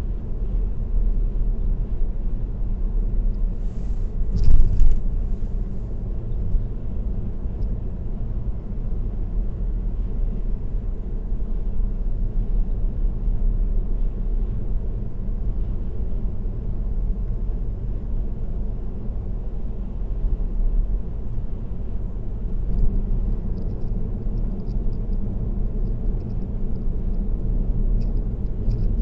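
Car driving at expressway speed: steady low road rumble of tyres and engine. A brief loud thump comes about four and a half seconds in.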